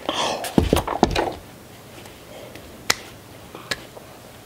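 A quick cluster of knocks and taps as instant noodle cups are set down on a table, followed by two single sharp clicks later on.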